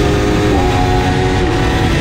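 Two-stroke race motorcycle engine on Martin Johnson expansion-chamber pipes, running hard at high revs, heard onboard over a low rush of wind. Its pitch steps up about half a second in and drops back near the end.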